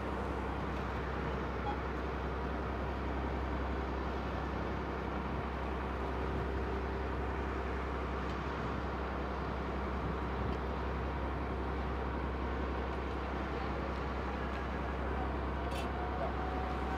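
Fishing boat's diesel engine running with a steady low hum.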